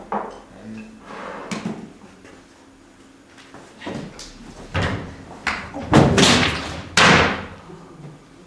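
Thumps and knocks as actors move hurriedly about a stage set, then two loud slams about a second apart near the end, like a door or cupboard banging shut.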